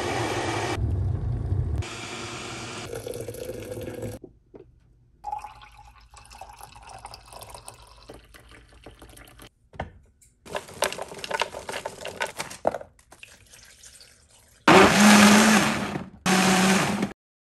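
A string of short kitchen sounds cut one after another: a glass electric kettle heating water, coffee poured into a mug, and, loudest, a blender running in two short bursts near the end, each stopping abruptly.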